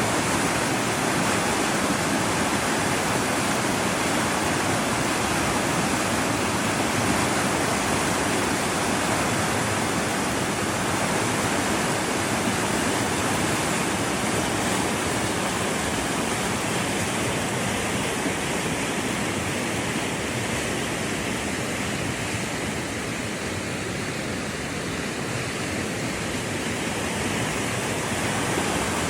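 River water rushing steadily over rocks, a constant even roar with a slight drop in loudness about three quarters of the way through.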